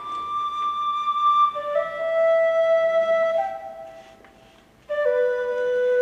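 Flute playing a slow melody of long held notes that step downward in pitch, breaking off briefly about four seconds in, then resuming on a lower held note.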